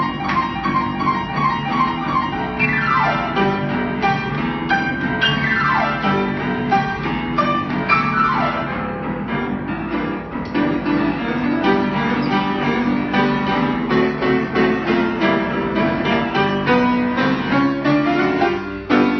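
Grand piano played in a lively style, with three quick descending runs down the keyboard in the first half.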